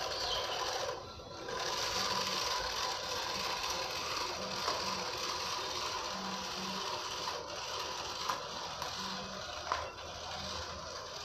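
Small electric motor and gearbox of a homemade RC dump truck running steadily as it drives over dirt and gravel, with a short dip about a second in and a couple of sharp clicks near the end.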